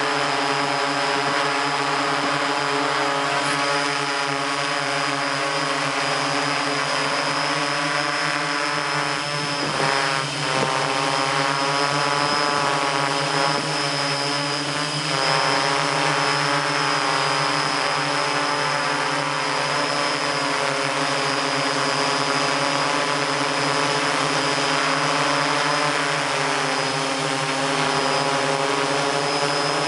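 MikroKopter hexacopter's six motors and propellers heard from the camera on board, a steady hum of several tones at once. The pitches waver for a few seconds about a third of the way in.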